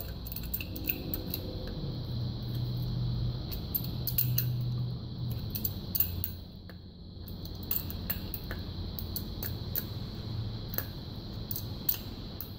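Adjustable wrench working a brass fitting off the side of a pressure washer pump: scattered light metallic clicks and clinks as the wrench grips and turns, over a low steady hum.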